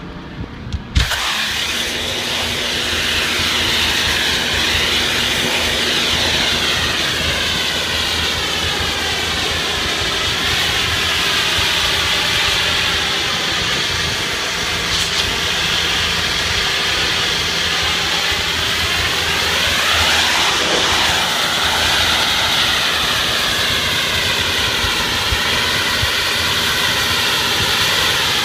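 Pressure washer spraying a concrete wall: a loud steady hiss of the water jet that starts about a second in, over the steady hum of the machine's engine.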